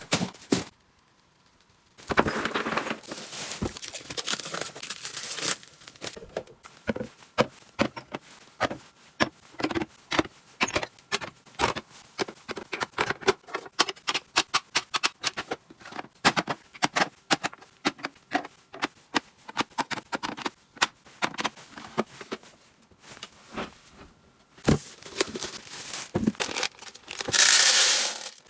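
Household items being unpacked and arranged by hand: plastic packaging crinkling, then many light clicks and taps as items are handled and set down, with a louder rustle of packaging near the end.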